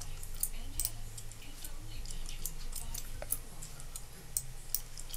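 Light, irregular clicking of a computer mouse and keyboard, one to three clicks a second, over a low steady hum.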